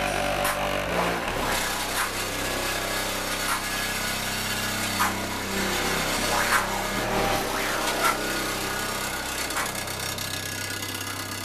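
Music with heavy bass playing loud through a car's stereo over Bluetooth from a phone, the low bass notes held and changing every few seconds.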